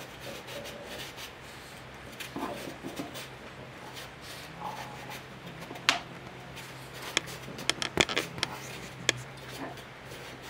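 Small knife peeling a green vegetable by hand: soft scraping strokes of the blade, then a run of sharp clicks in the second half as it cuts through. A steady low hum runs underneath.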